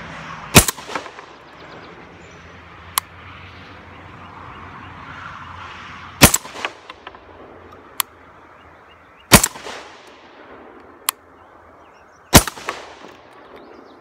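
Hatsan Escort semi-automatic 12-gauge shotgun firing rifled slugs: four loud shots a few seconds apart, each followed by a brief spatter of smaller cracks. Three fainter, sharp cracks fall between the shots.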